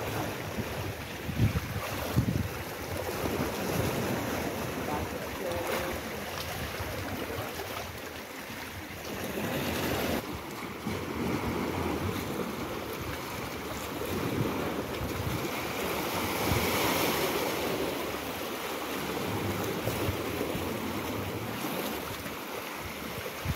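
Sea waves washing against shore rocks, with wind buffeting the microphone in gusts. The surf swells louder twice, once near the middle and again a little after.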